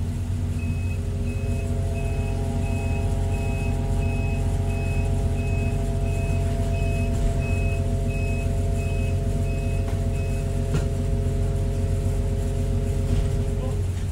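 Excavator's diesel engine running with a steady whine from its hydraulics, while a high warning beep sounds about one and a half times a second for roughly ten seconds and then stops. The whine cuts out shortly before the end.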